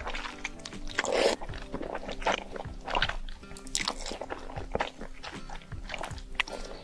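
Close-up eating sounds: chewing and biting through instant noodles and shrimp in quick, irregular crunchy bites, over background music.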